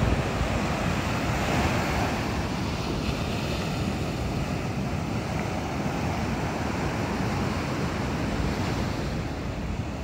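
Ocean surf breaking and washing up the beach in a steady rush, with wind rumbling on the microphone.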